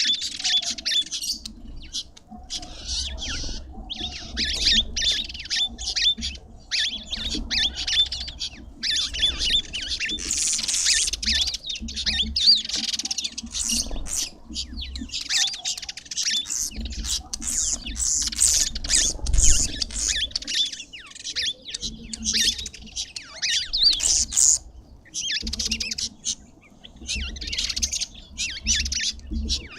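Several small birds at a feeder chirping and squawking in dense, overlapping high-pitched chatter, with a short lull about halfway through and another near the end.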